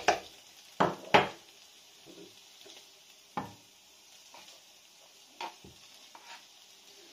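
A metal spoon and a wooden spatula knocking and scraping against a non-stick frying pan as a spoonful of cream cheese is scraped off onto onions, with a faint sizzle of the onions on low heat. Two sharp knocks come in the first second and a half, then a few lighter taps later.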